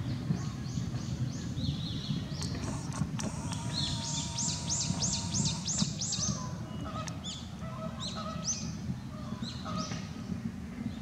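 Songbirds calling: quick high notes in short series, with a run of about nine in a row around the middle, over a steady low rumble.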